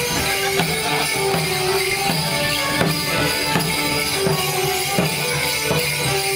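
Border morris band playing a lively folk dance tune on fiddles and other instruments, with steady percussion marking the beat.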